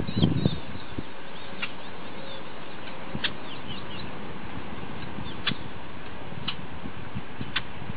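Small birds chirping in the background, short high calls scattered throughout over a steady hiss, with about five sharp ticks at irregular intervals. A brief low rumble comes right at the start.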